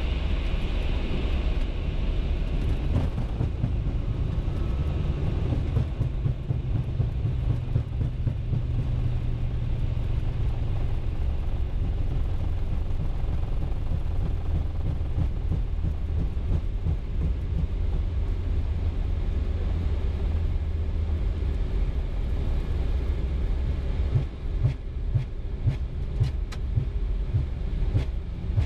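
Airbus A320 rolling out on the runway just after touchdown, heard from the cockpit as a steady low rumble of engines and wheels. A stronger hum in roughly the first ten seconds eases off, and a series of light thumps comes near the end.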